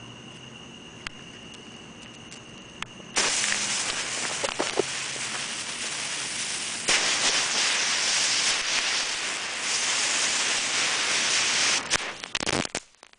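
A firework burning and spraying sparks with a loud, steady hiss that starts suddenly about three seconds in and grows louder partway through. Sharp crackles come near the end before the sound cuts off abruptly. Before the hiss, faint clicks and a steady insect chirr are heard.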